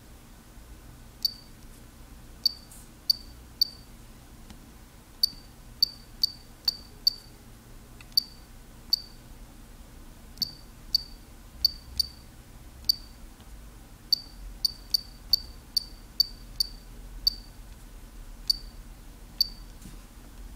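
Casio FX-795P pocket computer beeping at each keypress: about two dozen short, high-pitched electronic beeps at an uneven typing pace, with a faint steady hum underneath.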